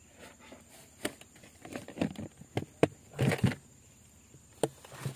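Irregular plastic knocks and clicks from a plastic bucket and its hinged lid as a tilapia is put in and the lid is shut, with rustling between the knocks; the busiest stretch comes a little past the middle.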